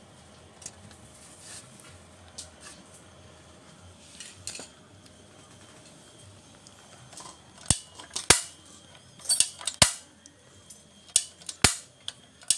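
Sharp snapping clicks from a gas burner's spark ignition, several in quick pairs, starting about eight seconds in after a stretch of faint low hum.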